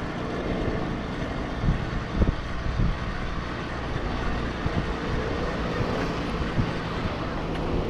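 Riding noise on a 20-inch folding e-bike: a steady rumble of wind on the microphone and tyres on the road, with a few sharp knocks from bumps, the loudest a little after two seconds in.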